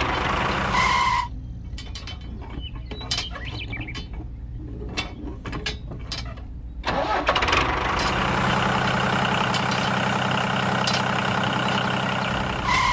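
Scattered mechanical clicking and ratcheting, then, about seven seconds in, a steady machine engine starts running evenly to the end.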